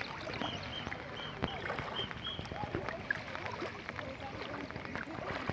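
Floodwater running across a submerged road as a steady rushing wash, with faint voices and a few short high chirps in the first half.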